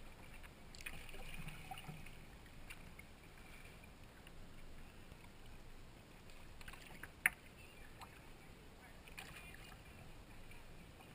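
Kayak paddling on calm water: soft splashes and drips from paddle strokes at intervals, with one sharp knock a little after seven seconds in.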